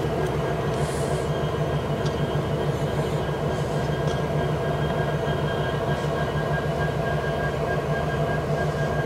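Norfolk Southern diesel locomotive running steadily, a low, even engine drone with a few faint clicks.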